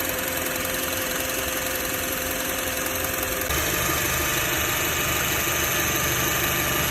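Honda minivan engine idling steadily, its accessory belt now running on a newly fitted tensioner pulley; the owner hears a slight improvement over the noisy old pulley's bearing. About three and a half seconds in, the sound steps a little louder.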